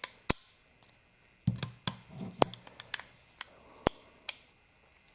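A series of sharp metallic clicks and clacks, with a quick cluster in the middle, from an 1895 Nagant revolver being reassembled by hand, its cylinder axis pin and holder being worked back into place.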